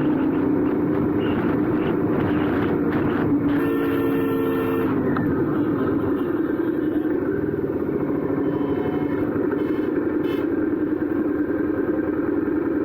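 Royal Enfield 650 parallel-twin motorcycle engine and exhaust running steadily on the move. About three and a half seconds in, a horn sounds once for just over a second.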